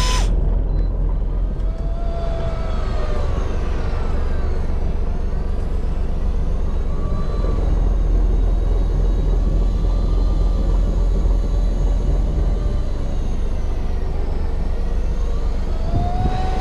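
Fishing boat's engine running steadily, with faint whines sliding up and down in pitch over it.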